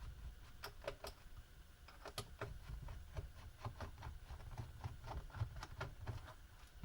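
Faint, irregular small clicks and ticks of a screwdriver turning small screws out of the bottom case of a Sony VAIO laptop, a few per second.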